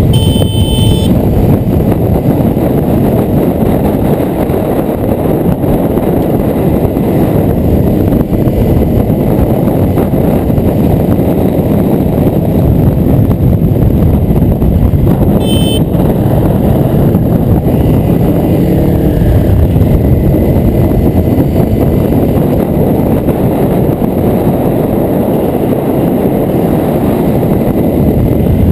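Heavy wind rush over a motorcycle-mounted microphone, with a Honda CRF250L's single-cylinder engine running under load beneath it as the bike rides through bends.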